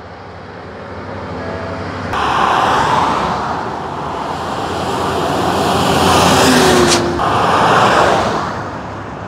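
Road and tyre noise of a vehicle travelling along a highway, with a steady low hum, jumping up about two seconds in and swelling as other cars and a truck pass close by.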